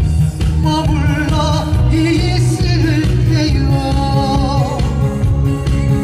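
A man singing with vibrato into a handheld microphone over a recorded backing track with a steady bass line and drum beat.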